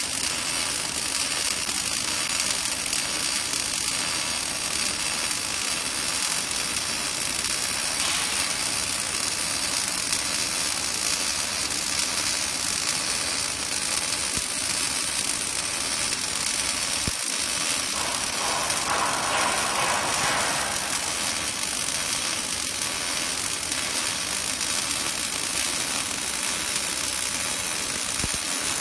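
Robotic laser welding cell at work: a steady hiss with a mechanical whirr as the laser welds and the positioner turns the part. A brief louder rasp comes about two-thirds of the way through.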